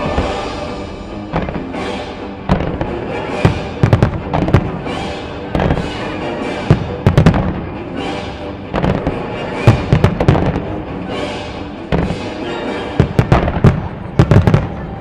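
Fireworks display: aerial shells and ground-fired comets going off in sharp bangs at irregular intervals, bunching into quick volleys several times. Music for the synchronised show plays steadily underneath.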